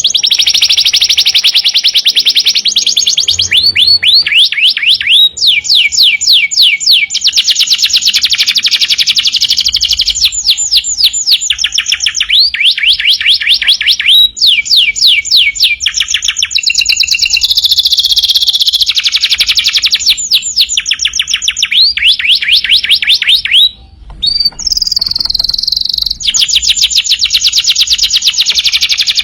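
Domestic canary singing loudly and without pause: fast trills of rapidly repeated falling notes, one phrase running into the next, with a brief break a little before the end.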